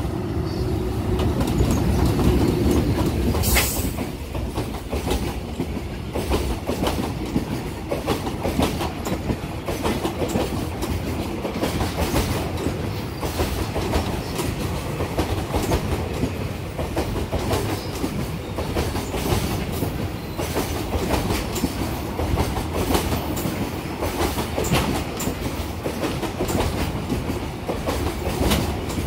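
JR Freight EH500 electric locomotive passing through at speed with a steady hum, loudest in the first few seconds, then its train of twenty Koki container flatcars rolling by, wheels clicking rapidly over rail joints. A single sharp clank comes about three and a half seconds in.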